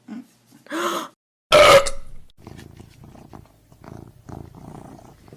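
A domestic cat purring, a low rough pulsing sound that starts about two and a half seconds in, after a short loud burst of noise.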